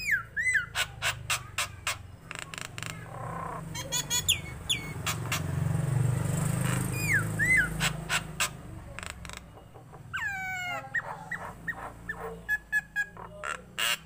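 Common myna calling: a run of sharp clicks mixed with short downward-sliding whistles, several in pairs, and a longer falling call about ten seconds in. A low rumble swells and fades in the middle.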